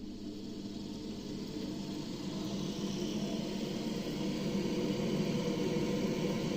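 Gas boiler fan running after repair, its steady whirring hum growing gradually louder as it spins up.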